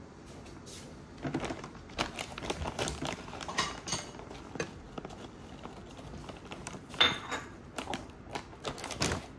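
Scattered clicks, taps and rustles of small objects handled on a table, such as tableware and packaging, with a sharper click about seven seconds in and another near the end.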